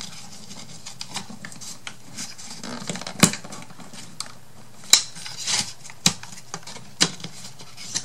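Thin laser-cut wooden craft pieces being handled and fitted together by hand: light scraping and rubbing of wood on wood, with a few sharp clicks in the second half, about a second apart.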